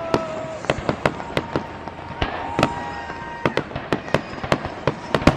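Fireworks display: a rapid, irregular series of sharp bangs and pops, several each second, with some louder reports standing out.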